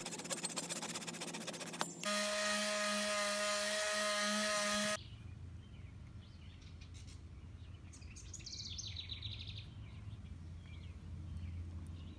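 Power tool running steadily for about three seconds, a high whine that starts and stops abruptly, while the wooden dowel plug is cut flush. Before it come fast scraping strokes on the wood; after it, birds chirp over a low hum.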